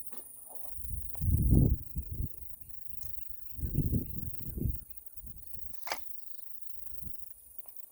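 Two loud bursts of low rumbling buffet on the microphone, about a second in and again around four seconds. Behind them a small bird twitters in a rapid run of short chirps, and there is one sharp click near six seconds.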